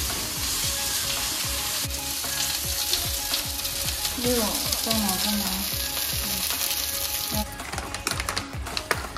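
Chicken barbecue skewers sizzling steadily as they fry in oil in a pan. About seven and a half seconds in, the sizzling cuts off and plastic food packaging crackles and rustles as it is handled.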